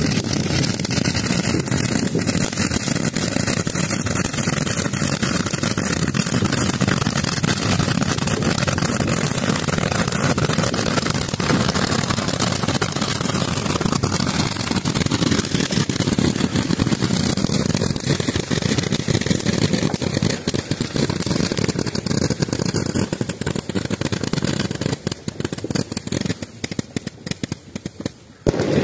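Hawk-Zooka 2.0, a 2000-shot roman candle launcher, firing a dense, continuous stream of shots that blur into a rapid crackling rush. Over the last few seconds the stream thins out into scattered pops.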